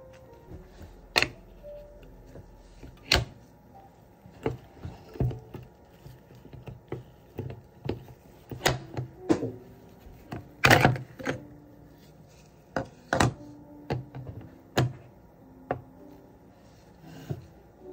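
Irregular clicks and knocks as a metal dental articulator is handled, its hinged parts and the mounted cast tapping and seating into place; the loudest knock comes near the middle.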